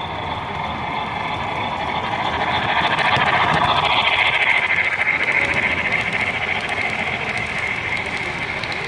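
HO scale model freight train rolling past close by: the cars' wheels running on the metal track with a steady high whine, growing louder toward the middle as the cars pass nearest.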